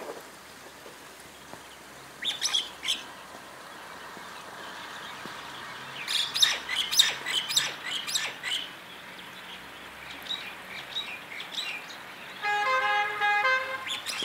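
Small birds chirping in short bursts of high calls, busiest in the middle. Near the end a vehicle horn honks twice: one held blast, then a shorter one.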